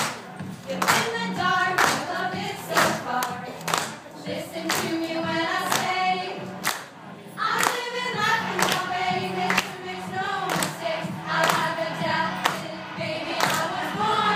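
Several voices singing a song, with hand claps keeping the beat about once a second.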